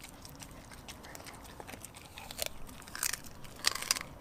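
German shepherd mix dog chewing raw food with wet, crunchy bites: light clicks at first, then several louder crunches in the second half.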